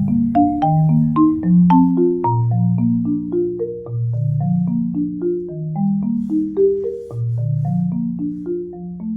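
Background music: a gentle tune of marimba-like struck notes, about three a second, over a soft bass line, fading a little near the end.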